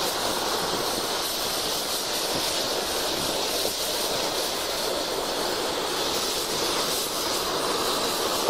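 Oxy-fuel cutting torch cutting through steel plate: the flame and high-velocity cutting-oxygen jet make a steady hiss.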